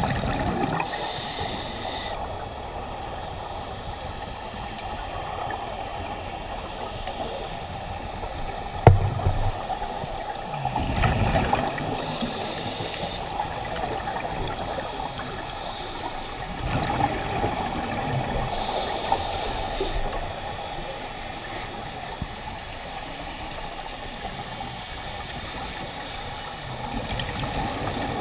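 Scuba diver breathing through a regulator underwater: hissing inhalations and bubbling exhalations come every several seconds over a steady hum. A single sharp knock sounds about nine seconds in.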